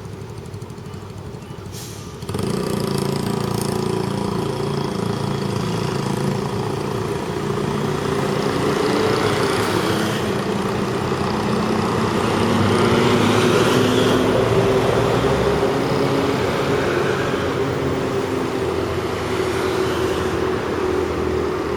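Road traffic: motor vehicle engines running close by, getting much louder about two seconds in as vehicles move off, with engine notes rising as they accelerate.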